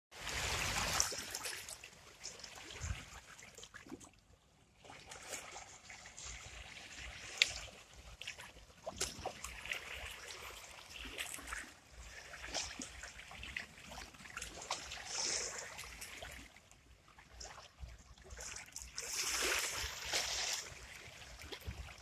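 Small Baltic Sea waves lapping and washing over rocks and stones at the water's edge, splashing and trickling in irregular swells, with a larger surge of splashing near the end.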